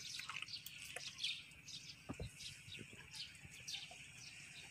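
Birds chirping in many quick, short, falling notes over a steady high background hiss, with a soft low thud about two seconds in.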